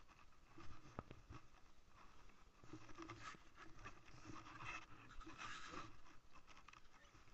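Faint rustling and a few light knocks as a mesh fish weigh-in bag is handled and set down on a boat deck.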